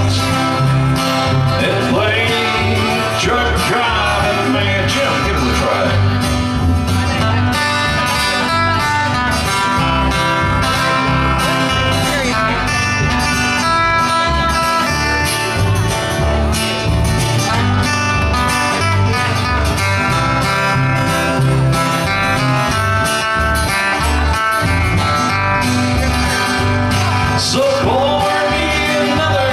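Country band playing live on acoustic guitars and upright bass, with singing.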